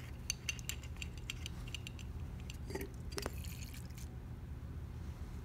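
Light clicks and taps of a plastic dial hydrometer being dipped into a lead-acid battery cell to take up electrolyte, with a brief hiss about three seconds in, over a steady low hum.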